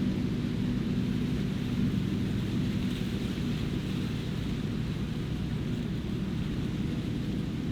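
Steady drone of the large diesel engine of maize-harvesting farm machinery running at a constant speed.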